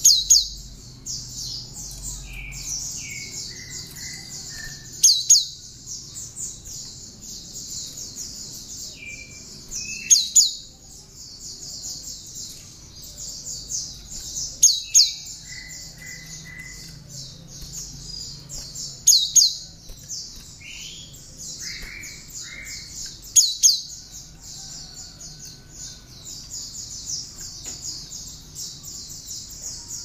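Gelatik batu (cinereous tit) singing a song filled with mimicked bar-winged prinia (ciblek) phrases: a continuous rapid high trill, broken about every four to five seconds by a loud sharp double note, with a few short lower notes after several of them.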